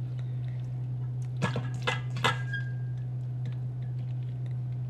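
Shredded red cabbage being packed down by hand into glass jars: soft squishing with three sharp taps against the glass about a second and a half to two and a half seconds in, over a steady low hum.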